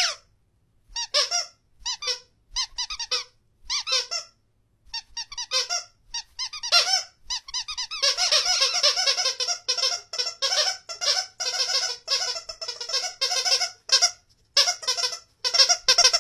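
High-pitched squeaks in short runs, becoming a fast, nearly continuous string of squeaks about halfway through.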